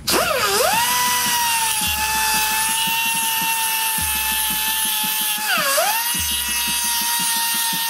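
Power tool with a thick cutoff (whiz) wheel grinding the angled edge of a steel flail mower blade to sharpen it. A high whine spins up right at the start over a grinding hiss, sags briefly about six seconds in and recovers.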